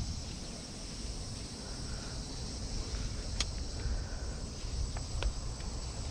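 Crickets and other evening insects chirping in a steady high chorus, over a low rumble, with a few faint light clicks.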